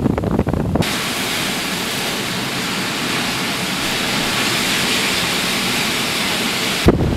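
Storm waves breaking on the lake shore and pier make a steady, even rush of surf. Wind buffets the microphone at the start and again just before the end.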